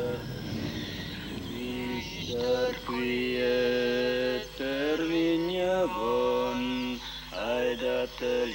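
A man singing a slow chant in long held notes that glide from one pitch to the next, with short breaks between phrases.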